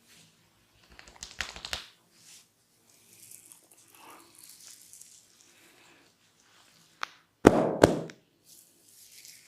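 Barber's hands working on a client's head and hair during a head massage. About a second in there is a quick burst of crackling clicks, then soft rustling of hands over hair. A sharp click comes a little before two loud slap-like strikes about half a second apart, near the end.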